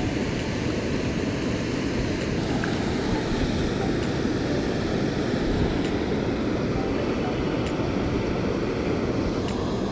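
Steady low rush of flowing water below a dam's outflow, even throughout.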